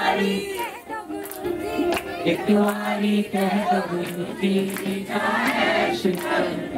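A group of voices singing a devotional song (bhajan) together, holding long notes.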